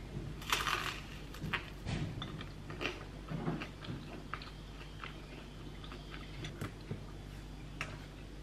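A person biting into crusty sourdough toast topped with avocado and grated boiled egg: a crunch about half a second in, then chewing, with small crunches and mouth clicks for several seconds.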